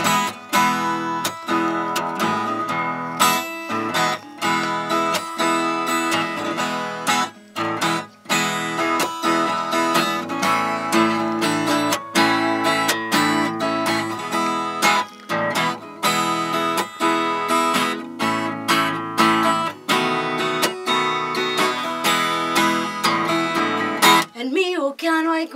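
Acoustic guitar strummed in a steady rock rhythm, playing an instrumental break between verses of the song.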